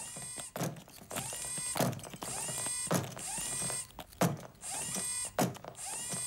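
Servo motors of the six-legged walking robot Tarry II running in a repeating stride cycle a little over once a second: a whirring whine with curving pitch and a hiss, then a sharp mechanical knock.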